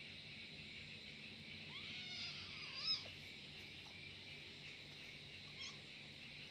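A kitten gives one drawn-out angry meow, about a second long, rising and then falling in pitch and ending in a short sharp cry. Crickets chirp steadily behind it.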